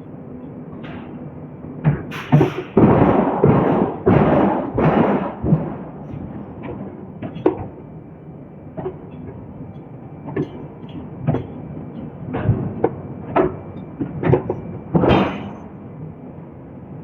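Hydraulic forging hammer striking a steel billet: a quick run of heavy blows about two seconds in, then lighter, sharper knocks at uneven spacing and another heavy blow near the end, over a steady machine hum.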